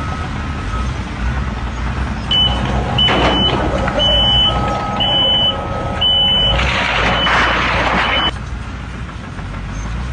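Heavy vehicle engine running with backup alarms beeping. A faint backup alarm beeps steadily, and a louder, higher-pitched one beeps about once a second from about two seconds in. Near the end a rush of noise cuts off suddenly.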